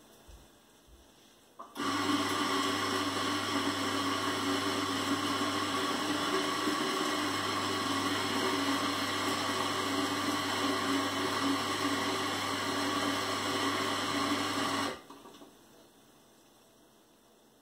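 Electric coffee grinder grinding coffee beans: a steady motor whir that starts about two seconds in and cuts off after about thirteen seconds.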